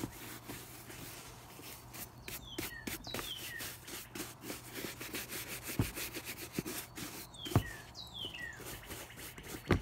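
Horsehair brush scrubbing a leather Keen Targhee III hiking boot, the bristles rasping in short repeated strokes, with two knocks about six and seven and a half seconds in. A bird calls in two bursts of short falling chirps.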